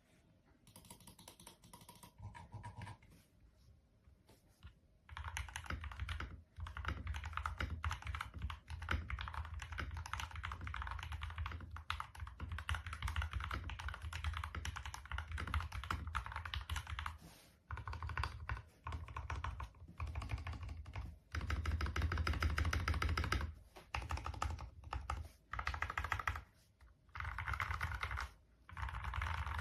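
Typing on a mechanical keyboard fitted with Gateron Milky Yellow Pro KS-3 linear switches, keystrokes in fast runs broken by short pauses. The first few seconds are lighter and quieter, then dense typing starts about five seconds in.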